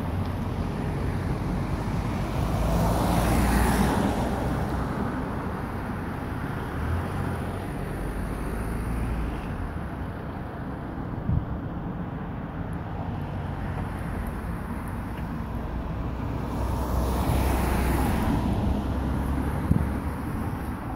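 Road traffic on a country lane: cars moving slowly with a steady low engine rumble, and a swell of tyre and engine noise as a car goes by close, about three seconds in and again near the end.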